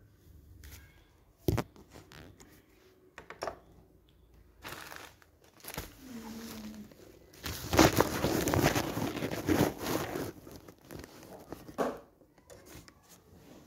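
Crinkling, crackling handling noise of a clear plastic dish and the black glitter material in it being scraped and prodded, with scattered sharp clicks and a louder, denser stretch of crackling about halfway through.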